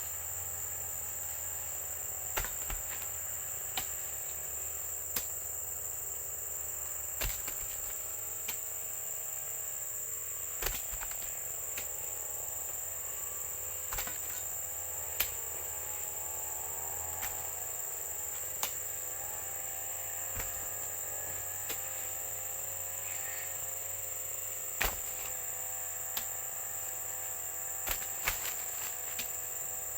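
Insects, crickets or similar, trilling in one steady high-pitched drone, with a fainter wavering hum underneath and scattered sharp clicks.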